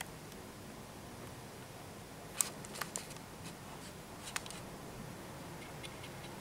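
A few short clicks and taps from flashlights being handled, a cluster about two and a half to three seconds in and one more a little after four seconds, over a low room hiss.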